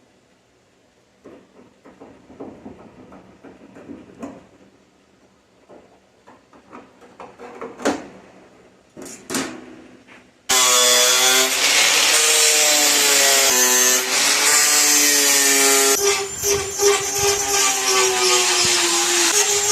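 Scattered light taps and clicks of parts being handled, then about halfway through a handheld power tool starts abruptly and runs loudly with a whining pitch that wavers as it bites, cutting into the car's hood for the hood pin.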